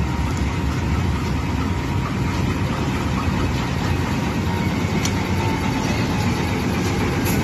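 Diesel locomotive engine running steadily, a deep even rumble, as the locomotive rolls slowly past close by.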